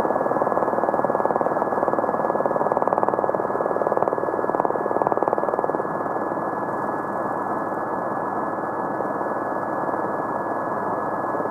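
Formula One car engine noise, steady and narrow-sounding, with a constant high tone over it.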